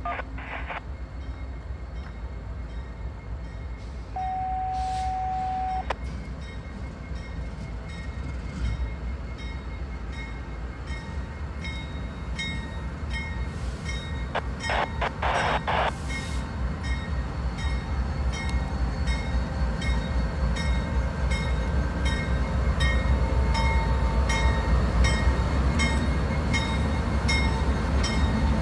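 Diesel locomotives of a Norfolk Southern freight train, led by a GE AC44C6M with an EMD SD70ACE behind, rumbling closer at slow speed, the deep engine sound growing steadily louder as they pass. A single steady tone sounds for about a second and a half near the start, and from about halfway through an even ringing repeats about twice a second.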